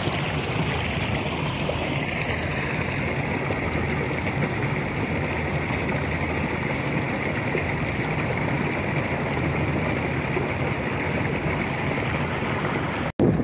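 Water rushing steadily out of a culvert opening and along a concrete irrigation channel, carrying the fermented bio-fertilizer out of the fermenter tank to flood the field. The sound cuts out for an instant near the end.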